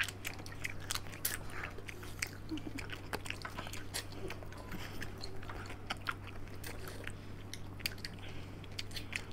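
Mouth sounds of several people eating soft ice cream off spoons close to the microphone: many short wet clicks and smacks of lips and tongue, over a steady low hum.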